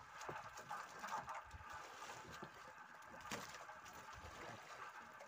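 Sea water lapping against the boat's hull, with wind on the microphone and a few light knocks, the sharpest about three seconds in.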